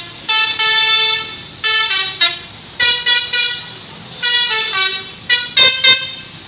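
Multi-tone 'telolet' bus horn playing a tune: about five short phrases of stepped notes, each a second or less, with brief pauses between them.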